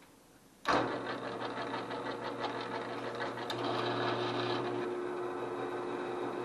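Drill press running at slow speed with a step drill cutting into quarter-inch hot-rolled steel plate: a steady motor hum under the grinding of the cutter in the metal. It starts abruptly about a second in.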